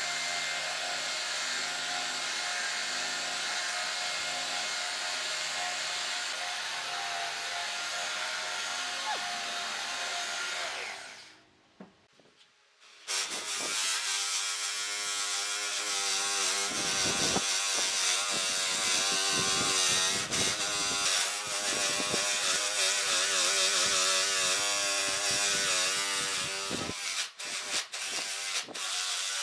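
A hand-held belt sander running steadily across a solid-wood tabletop. After a short gap about twelve seconds in, an electric drill spins a sanding disc against the rounded log edge of the top, its pitch wavering as it works.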